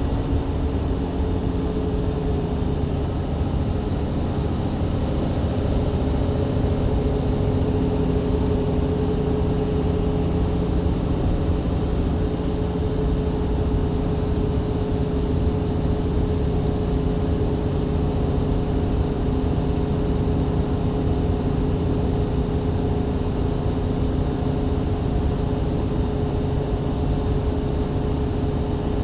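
Mercedes-Benz Citaro C2 LE hybrid bus heard from inside, its diesel engine and Voith automatic gearbox pulling steadily at road speed, with a steady engine drone over road and tyre noise.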